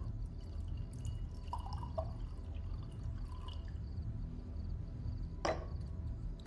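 Wine poured from a bottle into a wine glass, trickling and dripping, with small glassy clinks. About five and a half seconds in there is a single sharper knock.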